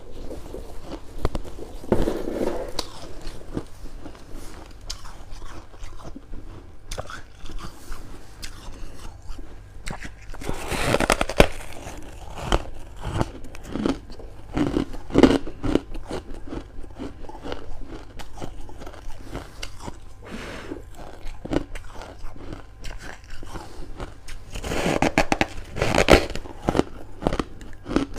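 Close-up biting and chewing of freezer frost: a run of sharp, crisp crunches, with louder bursts of crunching about a third of the way in and again near the end.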